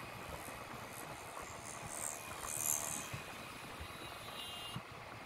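Wind and road noise from riding a motor scooter on a highway, a steady rush that swells for a moment about two and a half seconds in and thins out near the end.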